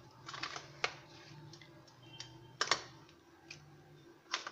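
Squares of cooled, brittle peanut chikki being snapped apart by hand and knocking against each other and a steel plate: a scattered run of sharp clicks and taps, the loudest about two-thirds of the way through and just before the end.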